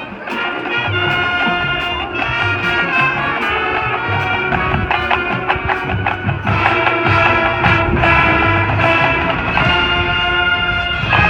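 High school marching band playing: held brass chords over drums and percussion, the band swelling to a fuller, louder passage about six and a half seconds in.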